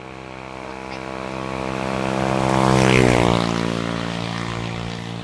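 A motor vehicle driving past on the road. Its engine grows steadily louder as it approaches and passes about three seconds in, with its pitch dropping, then fades away.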